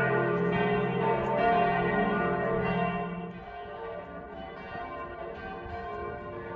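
Several church bells ringing together, loud for the first three seconds or so, then dropping to a softer, lingering ring.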